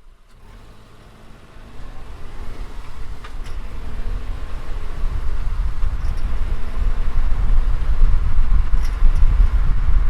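Subaru driving in gear under load, its engine and road noise growing steadily louder as it accelerates, with a few brief high-pitched chirps about three, six and nine seconds in. The chirp comes only when the warm car is in gear and under load; its cause is unknown to the owner.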